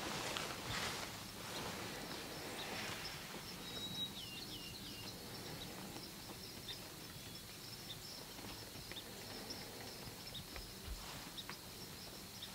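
Quiet dusk field ambience: a faint steady high-pitched insect trill throughout, with a bird giving a quick run of three or four short down-slurred chirps about four seconds in.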